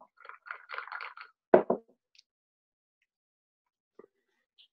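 Faint, broken fragments of a person's voice over a video-call line, with one short louder syllable about a second and a half in, then silence as the call's audio cuts out.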